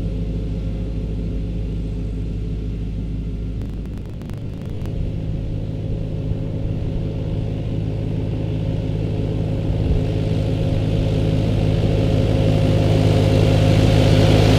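Tractor diesel engine running at a steady speed, growing gradually louder as the tractor approaches across the mown field, with a rising hiss building near the end.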